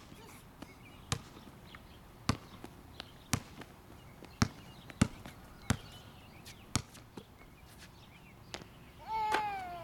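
Basketball bouncing on an outdoor hard court: sharp single bounces at uneven spacing, roughly one a second. A brief high-pitched voice calls out near the end.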